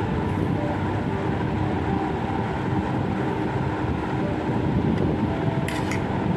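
Steady rumbling background noise with a few faint steady tones running under it. Near the end comes a short crunch of toast being bitten.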